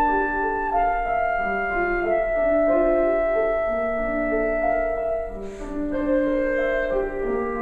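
Clarinet and piano playing contemporary classical music, with overlapping held notes and the piano most prominent. A brief hiss sounds a little past halfway.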